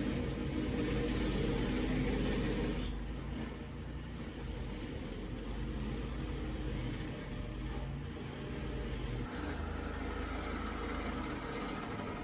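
Stump grinder's engine running steadily, its pitch and tone shifting about nine seconds in.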